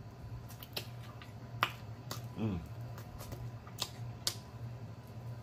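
Close-up eating sounds of a man chewing chicken wing meat: several sharp wet lip smacks and mouth clicks, with a brief hummed "mm" about halfway through.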